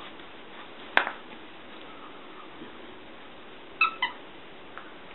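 Kitten and dog playing with a toy: a sharp knock about a second in, then two short, high squeaks in quick succession near the end.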